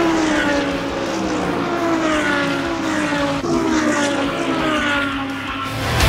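GT3 race cars passing one after another at speed, their overlapping engine notes falling in pitch as each goes by, with a fresh pass starting about three and a half seconds in.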